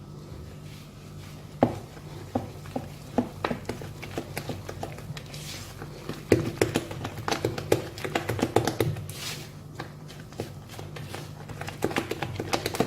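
A utensil stirring cake batter in a mixing bowl, working flour into the butter, egg and cocoa mixture. It makes irregular clicks and taps against the bowl, busier about six seconds in and again near the end, over a steady low hum.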